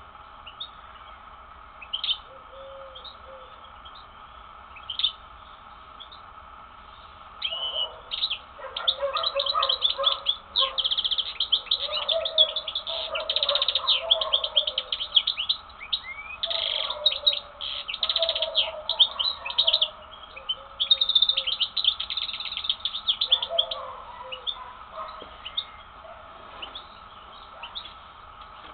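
European goldfinch singing. A few scattered calls give way, about seven seconds in, to a long, fast twittering song full of rapid trills, which thins back to occasional calls near the end.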